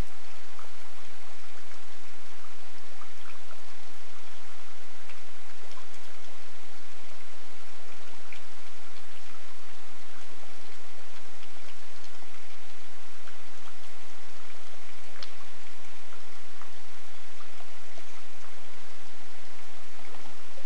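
Steady rain falling: a constant hiss with scattered single drops ticking through it.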